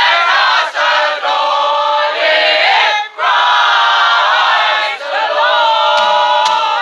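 A group of carol singers, men and women, singing a Christmas carol together, with a short break between phrases about three seconds in.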